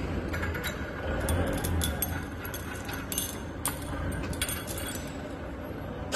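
Scattered light metallic clinks of steel parts being handled: rod ends, nuts and washers knocking together, at irregular intervals over a steady low background hum.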